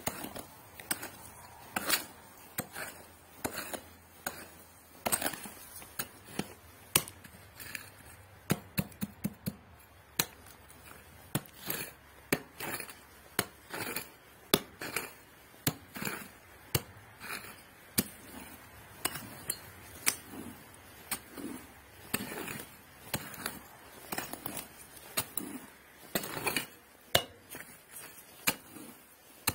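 A small metal hand digging tool repeatedly chopping into dry, stony soil: sharp strikes about one or two a second, uneven, with gritty scraping and pebbles clinking between them.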